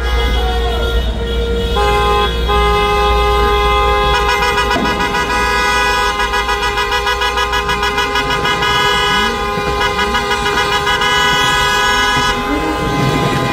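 Many car horns honking at once in celebration, several held long and overlapping, others in short repeated beeps, over a loud low rumble of traffic.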